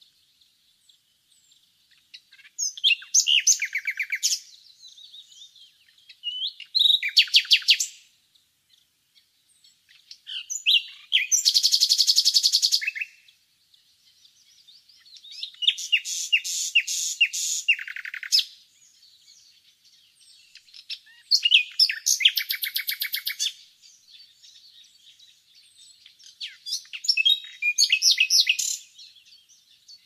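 Nightingale singing: separate loud phrases of rapid repeated notes and trills, each one to two seconds long, coming every four seconds or so, with faint chirping in the gaps between phrases.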